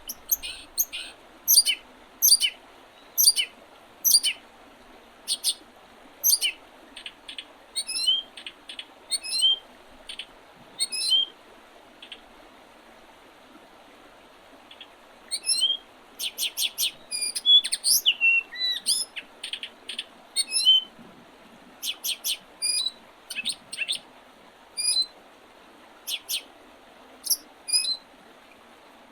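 Wild songbirds in early spring calling and singing: short high chirps, some in quick runs, with a lull of a few seconds midway and a busier stretch after it. A faint steady hiss lies underneath.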